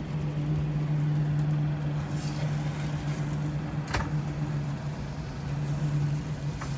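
A steady low mechanical hum, with a single sharp click about four seconds in.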